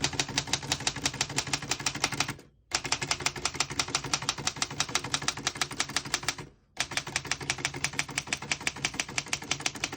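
1924 Remington Portable manual typewriter being typed on fast: a quick, even run of key strikes, about ten a second, in three bursts with short pauses between them, as the carriage steps along the line.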